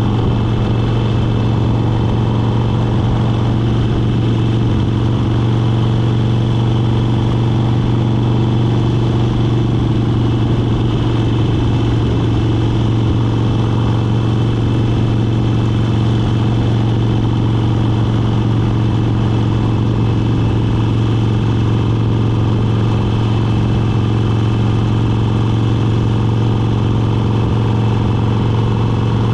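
Motorcycle engine running at a steady cruising speed: a constant drone that holds the same pitch throughout, with no gear changes or revving.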